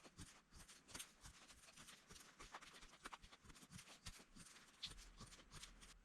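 Faint crackling of a wood campfire: irregular small pops and clicks, several a second.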